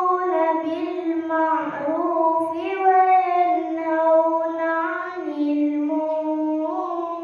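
A girl reciting the Quran in tarannum, the melodic chanted style: one long unbroken phrase of held, ornamented notes that steps down in pitch about five seconds in and rises again near the end.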